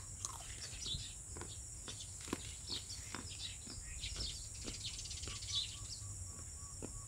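Birds chirping, many short high calls one after another, over a steady high-pitched drone of insects. A run of quick, evenly repeated pips comes in about five seconds in.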